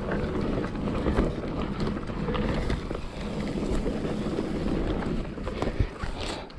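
Full-suspension mountain bike riding fast down a dirt trail: rushing wind on the microphone with tyre rumble and the clatter of the bike over bumps, and a louder knock near the end.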